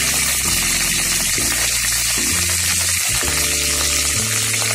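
Hot mustard oil sizzling steadily in a kadai as fresh green chillies fry with mustard seeds, curry leaves and dried red chillies. Background music with held low notes plays underneath.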